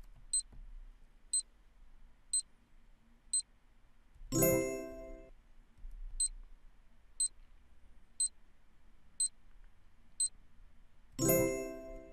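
Quiz countdown-timer sound effect: a short, high electronic tick once a second, then a bright chime about a second long as time runs out and the answer is revealed. This happens twice: four ticks and a chime, then five ticks and a chime near the end.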